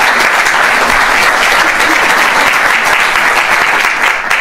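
Audience applauding, a loud dense clapping that fades near the end.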